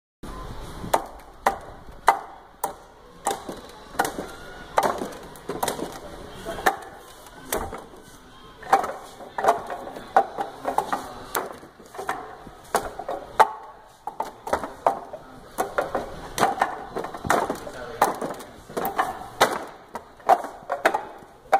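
Forearms and hands knocking against the wooden arms of a Wing Chun wooden dummy (mook jong): a continuous run of sharp wooden knocks, a few each second, with brief lulls.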